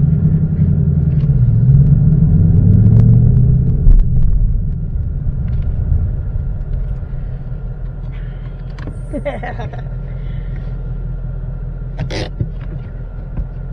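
Ford Mustang GT's Coyote 5.0 V8 heard from inside the cabin, a loud low rumble as it pulls for the first few seconds, then easing to a lower, steady rumble as the car slows.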